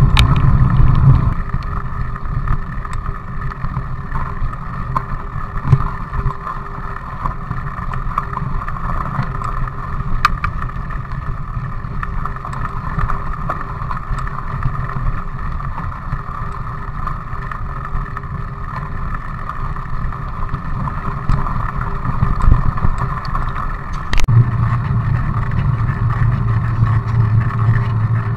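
Riding noise picked up by a bike-mounted action camera: a steady rumble of mountain-bike tyres on rough asphalt with wind on the microphone. The low rumble is heavier at the start, eases after about a second, and grows heavier again about three-quarters through.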